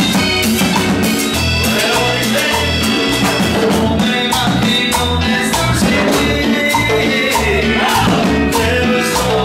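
Live Latin dance band playing an upbeat tropical tune: electric bass and keyboard over timbales and a scraped metal güira keeping a steady beat.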